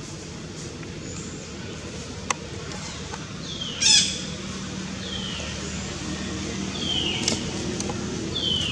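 Short high-pitched animal calls, each falling in pitch, heard four times. The first, about four seconds in, is the loudest.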